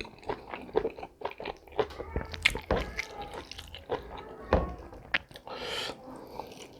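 Close-up wet eating sounds: chewing and mouth clicks from eating chicken offal in gravy, with a short slurp-like rush near the end.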